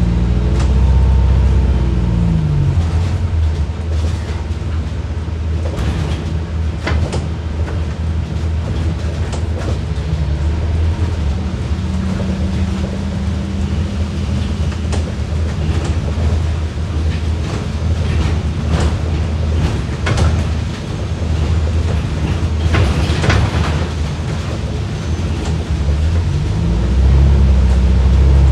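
Hybrid bus under way, heard from inside: a steady low drivetrain drone with knocks and rattles from the body, and in the first couple of seconds a whine falling in pitch as regenerative braking slows the bus. Near the end the low drone grows louder.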